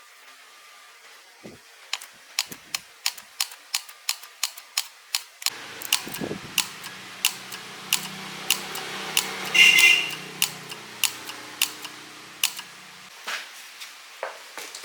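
A series of sharp, regular clicks, about three a second, then a small motor hums steadily for about seven seconds while the clicks carry on more slowly.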